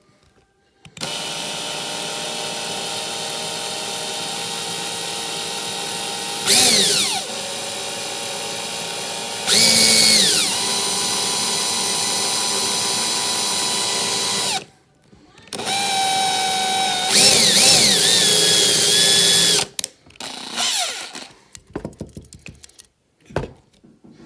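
Electric drill with a 5/64-inch bit drilling out the rivet of a die-cast toy car. The motor runs with a steady whine for about thirteen seconds, and its pitch sags briefly twice as the bit bites. It then stops, and runs again for about four seconds.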